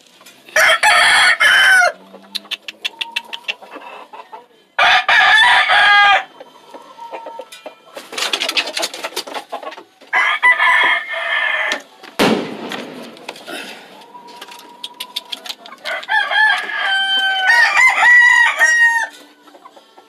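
One-year-old gamecock roosters crowing again and again, about five crows of a second or so each, with two or more birds crowing over one another near the end. A single sharp knock sounds about halfway through.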